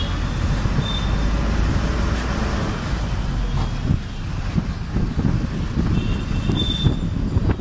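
Interior noise of a moving city bus: the engine running with a steady low rumble and road noise, and traffic heard through the open window.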